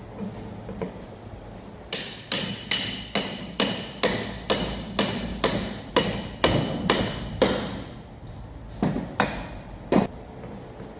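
Hammer blows on metal: a steady run of about a dozen ringing strikes, a little over two a second, then three more spaced-out blows near the end.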